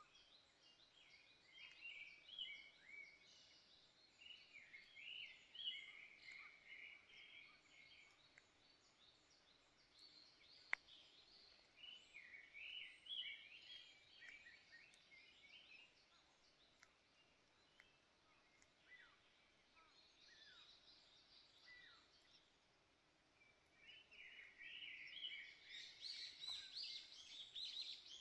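Grey-backed thrush nestlings begging: bouts of rapid, overlapping high chirps, four bursts with short pauses between them, faint overall. One sharp click about eleven seconds in.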